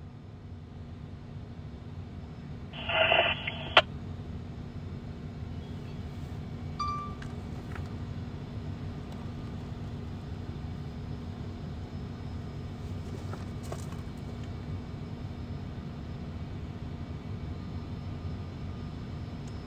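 Fire department radio: a short burst of squelch noise about three seconds in, cut off by a click, then a brief beep a few seconds later, over a steady low rumble.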